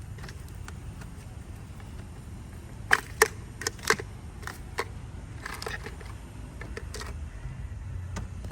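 Sharp plastic clicks and snaps, about five in quick succession around the middle and a few fainter ones after, as brittle wiring-harness connector latches are released and unplugged from the car's engine computer.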